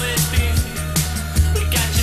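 Background music with drums keeping a beat under pitched instruments.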